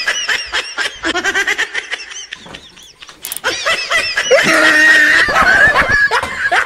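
Laughter in quick repeated 'ha-ha' bursts, a sharp click about three seconds in, then a long drawn-out voice for about two seconds.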